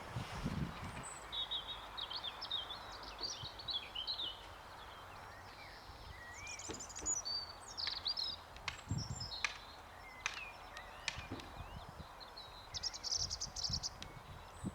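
Small songbirds chirping and twittering, with a run of short sharp calls in the middle and a fast buzzy trill near the end. A few low thumps come in under the birdsong.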